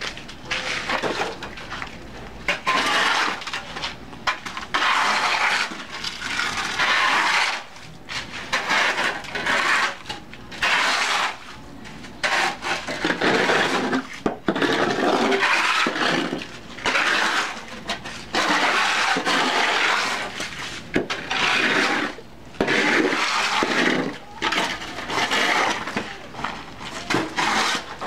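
Steel shovels scraping and turning cement mix on a concrete floor by hand: a gritty scrape about a second long, repeated roughly every two seconds.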